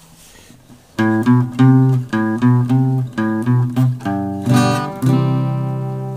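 Instrumental intro played on a plucked string instrument: a melody of short, separate notes starting about a second in, then a fuller chord about four and a half seconds in that rings on and slowly fades.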